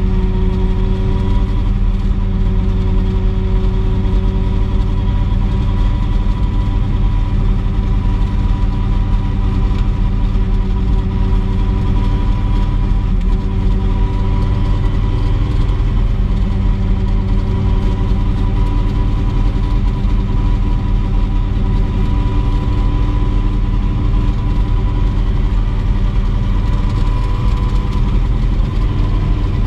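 Turbine engine of a Mosquito XET ultralight helicopter running steadily, a loud even drone with a steady whine above it that drifts slightly up and down in pitch.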